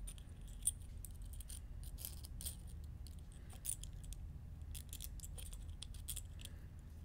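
Faint, scattered clicks and light metallic rattles of a Neutrik-style XLR connector's small parts being handled and fitted back together.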